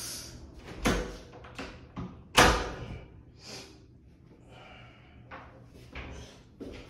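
Interior door being opened and shut: two knocks about a second and a half apart, the second the louder, followed by soft movement sounds.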